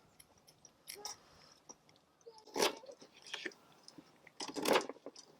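A knife peeling a raw turnip: small crisp scrapes and clicks, with two louder crunching strokes, one about halfway through and one near the end.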